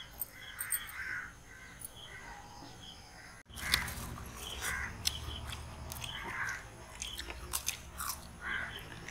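Crows cawing repeatedly in the background. After about three seconds there are sharp clicks of spoons against glasses and the sounds of people eating.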